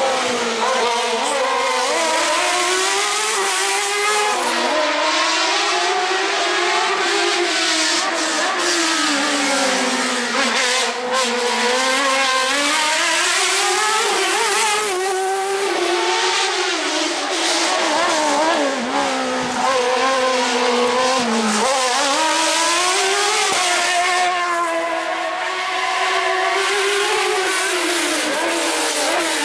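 Suzuki-engined Fiat 126 slalom prototype racing through a cone slalom, its engine revving up and dropping back over and over as it accelerates and slows between the cones.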